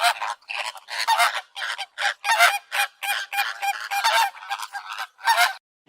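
Geese honking in a quick run of short, repeated calls that starts and stops abruptly.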